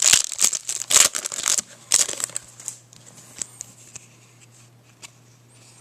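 Clear plastic crinkling and crackling as fingers handle it around trading cards. It is loud and dense for about two seconds, then thins to faint, scattered clicks.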